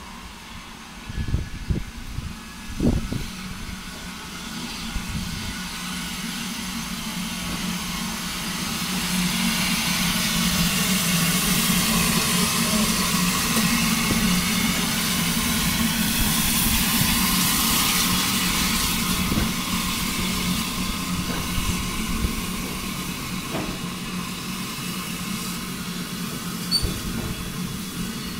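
Saddle-tank steam locomotive passing with a freight train, its steam hiss growing to a peak about halfway through and then fading. Goods wagons then roll by with occasional clicks from the wheels, and a few sharp knocks come near the start.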